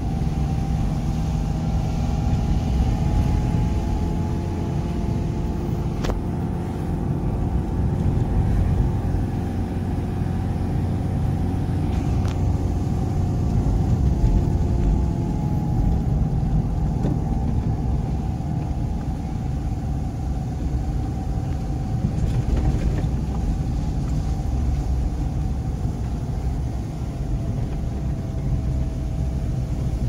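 Car driving slowly: steady low engine and tyre rumble, the engine's hum drifting slightly in pitch as the speed changes, with a few faint ticks.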